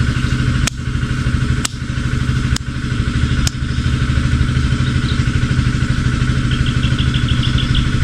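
An engine running steadily with a low, pulsing drone. Four sharp clicks come in the first half about a second apart, and a quick run of high chirps follows near the end.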